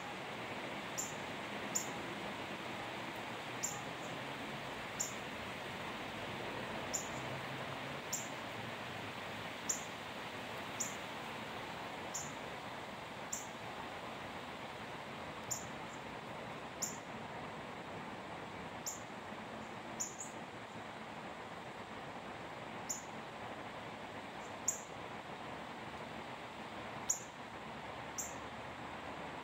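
A small animal's short, sharp, high-pitched chip call, repeated irregularly every second or two, over a steady background hiss.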